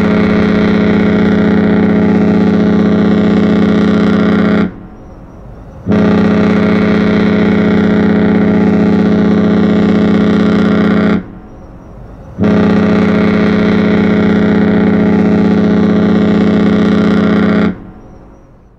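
Cruise ship World Dream's horn sounding three long blasts of about five seconds each, a low, steady tone with short pauses between the blasts.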